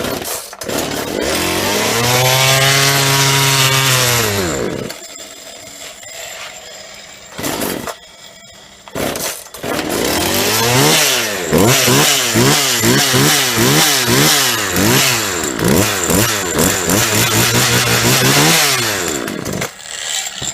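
Husqvarna 136 two-stroke chainsaw with freshly fitted crankshaft bearings. It fires on the pull cord, revs up and dies after a few seconds. After a couple more pulls it runs again and is revved in quick throttle blips, about one a second, then stops near the end.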